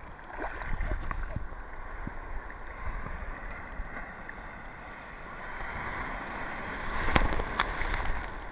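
Shallow ocean surf washing and sloshing around a camera held at water level, with wind rumbling on the microphone. The wash swells as a wave comes in near the end, and two sharp knocks sound a little after seven seconds in.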